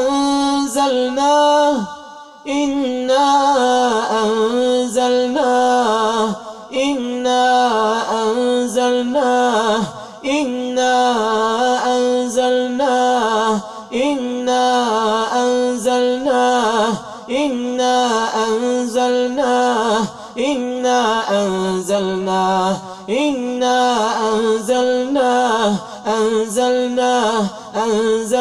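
A man chanting Quran recitation in a slow melodic style, with long drawn-out held notes and pitch glides, pausing briefly for breath every few seconds.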